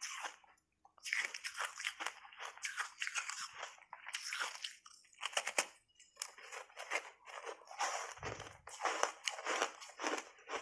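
Block ice coated in matcha powder being bitten in big pieces and chewed: rapid clusters of crisp cracking crunches, with short pauses between bites.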